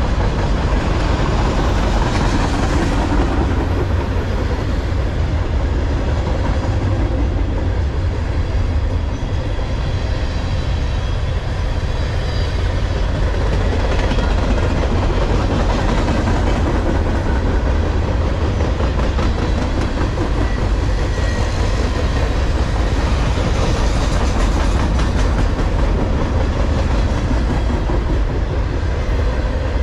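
Long freight train of empty open-top garbage container cars rolling past: a steady, unbroken noise of steel wheels on rail, heaviest in the low end.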